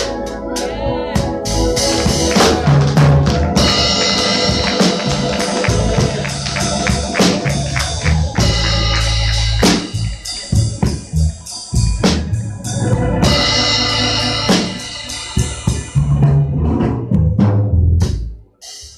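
Church band music: a drum kit playing with fills and cymbal crashes over organ and keyboard chords, cutting off sharply near the end.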